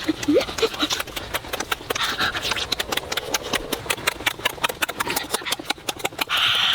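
Close-miked eating: a person chewing and crunching food, a fast, irregular run of sharp clicks and smacks, with a brief hissing burst near the end.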